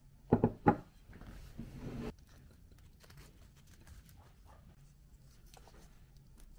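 Two sharp knocks of a plate set down on a wooden table, then about a second of scraping as a chair is moved. After that come faint, scattered crackles of dry nori sheets handled with the fingers.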